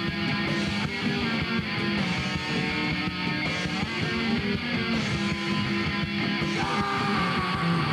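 Rock band playing an instrumental passage between sung lines, with guitar over a steady beat. A new high held note comes in near the end.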